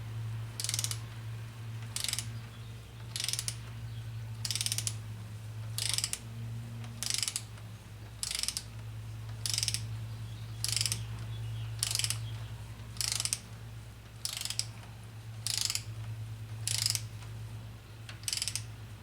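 Hand ratchet wrench with a socket clicking in repeated short strokes, about one every 1.2 seconds, some fifteen in all, as a small bolt is run down. A steady low hum sits underneath.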